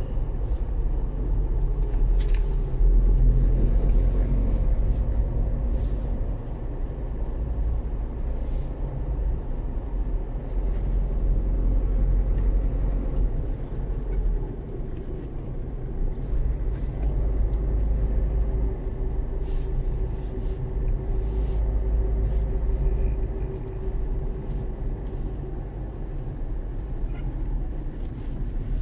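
Car driving, heard from inside the cabin: a steady low road and engine rumble.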